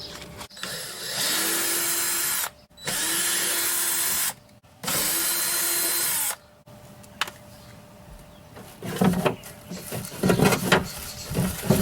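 Cordless power driver spinning out screws in three runs of about a second and a half each, with short pauses between. Lighter clicks and knocks follow near the end.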